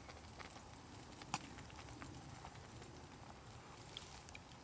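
Quiet outdoor background with one sharp click about a second in, a spoon knocking against the metal cooking pot, and a few faint ticks near the end.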